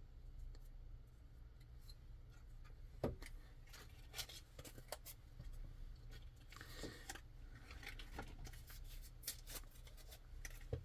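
Faint clicks, taps and rubbing as small pocket-knife parts are handled and wiped clean, with one sharper tap about three seconds in.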